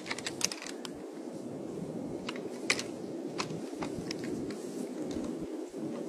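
Antlers of two fighting deer bucks clicking and clacking as they push with their antlers locked: about a dozen sharp, irregular knocks over a steady background hiss.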